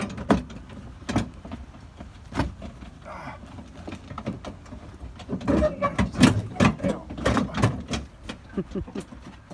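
Scattered knocks, clicks and rattles of a car jack being worked loose from its stowage in the trunk, busiest from about five and a half to eight seconds in.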